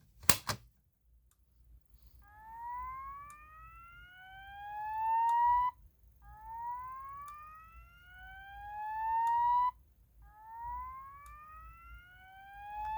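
Fire alarm voice-evacuation speaker sounding the Notifier slow-whoop evacuation tone: three rising whoops, each about three and a half seconds long and growing louder as it climbs, with short breaks between them. A sharp click comes just before.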